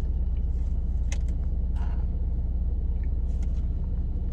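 Steady low rumble of a car, with a few faint knocks.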